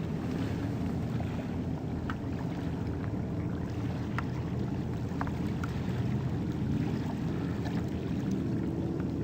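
Steady low rumble of water and wind around a kayak on open water, with a few faint light splashes or drips from the paddle.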